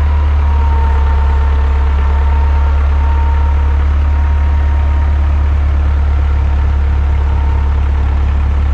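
Frick sawmill and its power unit running steadily: a loud, even low engine drone with a thin steady high whine over it.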